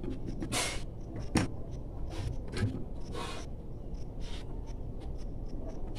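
Handling noises from a dismantled sewing machine motor: scrapes and light clicks as its end cap is fitted onto the motor body and taken off again, with one sharp click about one and a half seconds in. The motor is not running.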